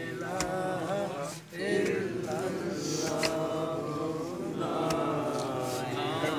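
Men's voices chanting a religious recitation in long, rising and falling phrases, with a short break about a second and a half in.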